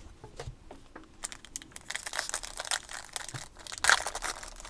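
Foil wrapper of a pack of trading cards crinkling as it is handled and torn open: a few faint clicks, then continuous crackling from about a second in, loudest near four seconds in.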